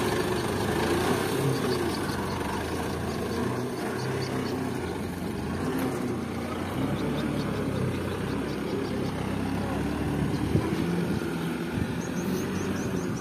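Diesel engine of an Isuzu Elf dump truck running steadily as the truck drives off over soft, rutted ground with a full load of fill soil.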